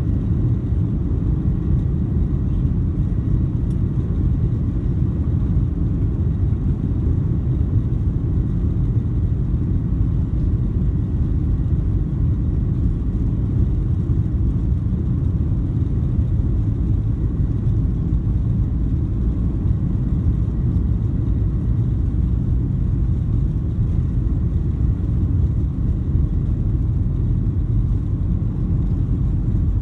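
Cabin noise of a Boeing 737-900 on its takeoff roll, heard from a window seat over the wing: its CFM56 engines at takeoff thrust and the wheels on the runway make a heavy, steady low rumble. A faint steady whine sits above it.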